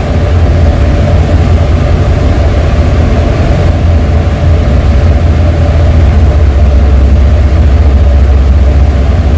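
Strong wind buffeting the microphone over the steady low rumble of a ship under way through rough sea.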